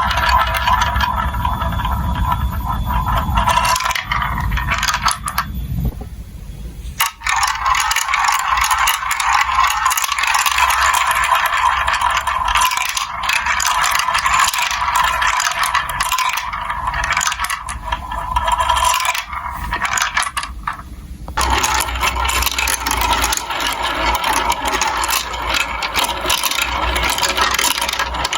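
Marbles rolling and clattering down plastic building-block marble run tracks: a continuous rattle with many small clicks. A low rumble underneath drops out for about a quarter of a minute in the middle, then returns near the end.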